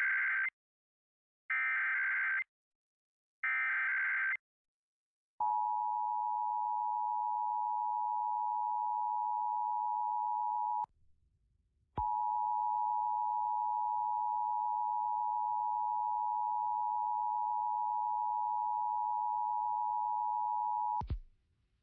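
Emergency Alert System test signal: three short screeching digital header bursts about two seconds apart, then the steady two-tone EAS attention signal. The attention tone breaks off for about a second midway, then runs on and stops abruptly near the end.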